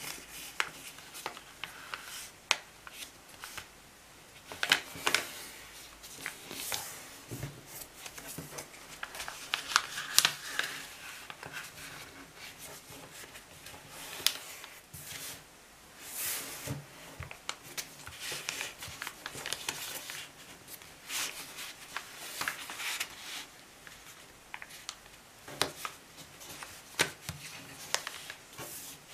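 A sheet of A4 paper being folded by hand on a tabletop: irregular rustling and sliding, with short sharp crackles as each fold is pressed flat with the fingers.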